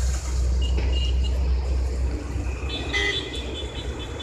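Tractor engine running steadily, driving a PTO-mounted water pump, heard as an even low drone. Short high-pitched tones sound briefly a second in and again in the second half.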